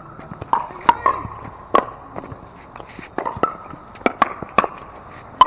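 Pickleball rally: a hard plastic ball popping off solid paddles and bouncing on the hard court, about ten sharp pops in quick succession.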